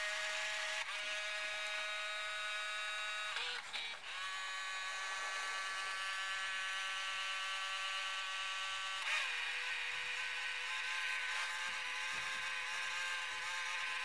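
Bose multi-CD changer running after power-up, giving a steady whine of several pitches that shift to new pitches about a second in, near four seconds in and again about nine seconds in.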